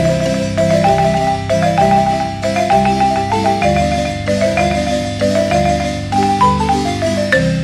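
Background music: a bright, rhythmic melody in mallet-percussion tones over a repeating bass line, ending in a descending run of notes near the end.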